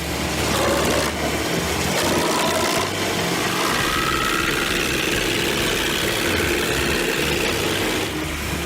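Wood chipper running steadily on its engine, with a faint whine in the middle that rises and then falls.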